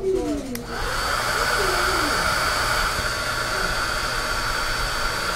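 Handheld hair dryer switching on about a second in, then blowing steadily with a thin high whine over its rushing air.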